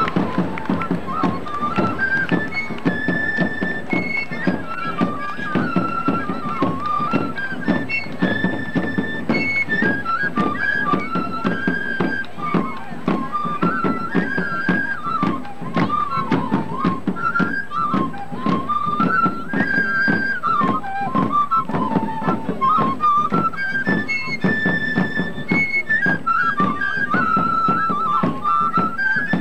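Folk-dance band music: a high flute melody with quick ornamented runs over a fast, steady drum beat.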